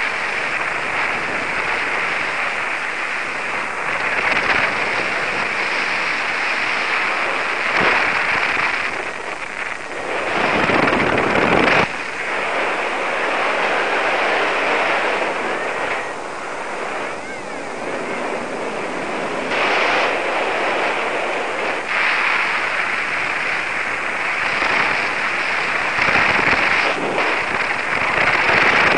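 Airflow rushing over a paraglider pilot's harness-mounted camera microphone in flight: a loud, steady rush of wind noise that swells and eases. The strongest gust comes about ten seconds in and cuts off sharply two seconds later.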